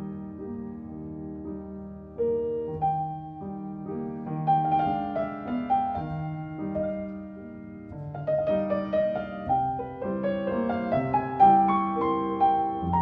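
Background piano music: a melody played over chords.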